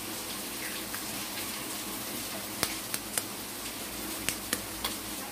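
Eggs tapped and cracked on the rim of a stainless-steel plate: two groups of three sharp clicks, the first about halfway through and the second near the end, over a steady low hiss.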